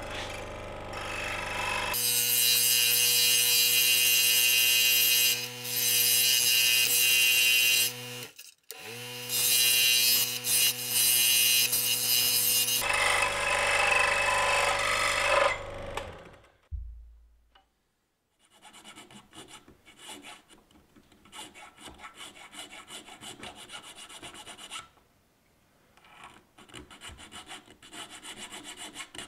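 Scroll saw running and cutting through a small piece of moose antler. About halfway through it is switched off and the motor winds down. After a short pause, a needle file rasps back and forth over the antler piece in quick hand strokes.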